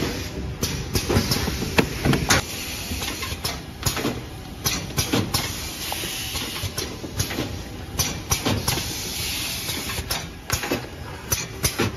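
Automatic cellophane overwrapping machine running: a steady mechanical noise with frequent, irregular clacks and knocks from its moving parts.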